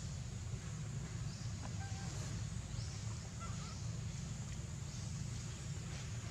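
An infant long-tailed macaque gives faint, brief whimpering calls: a couple of short squeaks about two seconds in and a wavering one about three and a half seconds in, over a steady low outdoor rumble.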